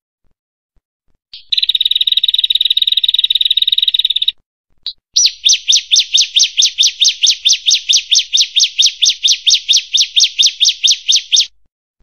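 Prenjak song: a fast, buzzy trill for about three seconds, then after a short break a rapid run of sharp repeated notes, about six a second, for some six seconds, both parts stopping abruptly.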